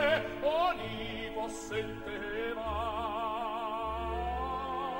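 Italian opera aria as background music: a classical singer with a wide vibrato over an orchestra, ending on a long held note.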